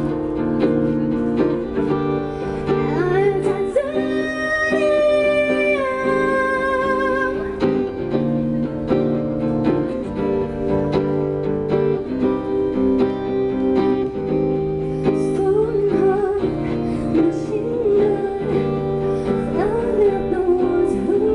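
Live acoustic guitar playing with a woman's singing voice over it, held notes sliding and wavering, the longest about four seconds in.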